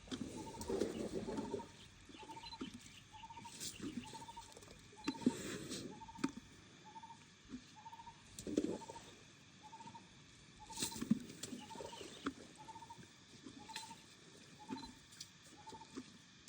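A short animal call repeated steadily, about three notes every two seconds, with irregular low rustling and thumping mixed in.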